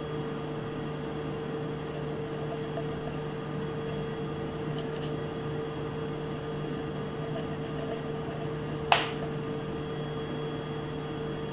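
Steady mechanical hum, like a running appliance or fan, holding a low tone and a higher tone, with one sharp click about nine seconds in.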